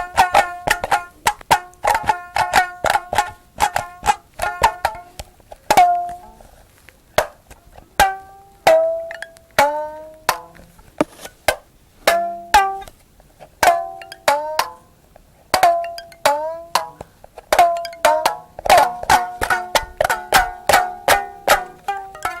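Rapid plucked-string notes with sharp, twangy attacks, many sliding down in pitch just after the pluck. Quick runs of notes about four to five a second open and close the passage, with slower, separated bent notes in the middle.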